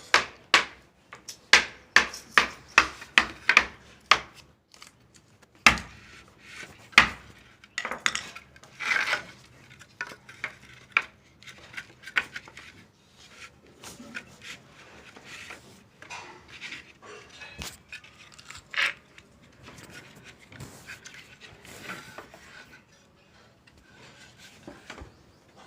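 Hand carpentry work on wood: a quick run of sharp, evenly spaced strikes for the first few seconds, then scattered knocks, clatter and scraping as wood and tools are handled.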